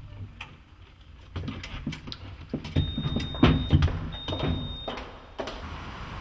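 Lift interior: knocks and clunks from the lift car and its sliding doors, with two long, high electronic beeps about three and four seconds in, then an even hiss near the end.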